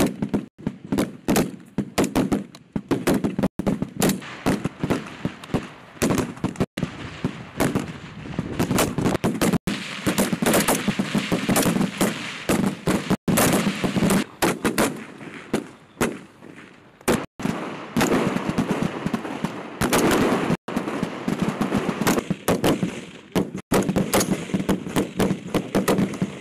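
Many 5.56 mm service rifles (M4 carbines and M16-type rifles) firing together down a range: rapid, overlapping shots in dense strings. The firing breaks off briefly a few times.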